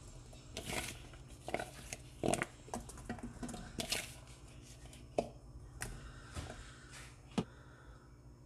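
Raw carrot rounds being placed by hand into a pot over sliced onion: irregular light taps and soft rustles, roughly one every second.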